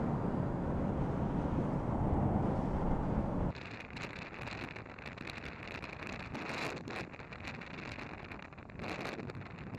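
Wind rushing over the microphone of a moving motorcycle, with the drone of the bike and traffic underneath. About three and a half seconds in, it cuts abruptly to a quieter, gustier wind buffeting that keeps flaring and easing.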